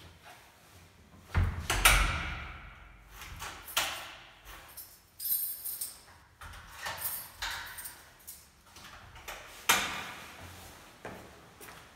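Apartment front door pushed shut with a heavy thud that rings on in a stone stairwell, followed by keys and lock clicks as the door is locked, and another sharp knock near the end.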